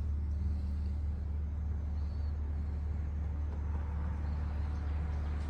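Steady low mechanical hum, unchanging, with faint light handling sounds of small parts.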